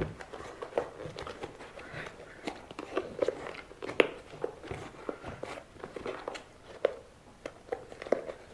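Irregular crunching and rubbing of a rubber JLB Cheetah RC car tyre and its foam insert being squeezed and pressed with fingers to seat the foam, with a sharp click about four seconds in.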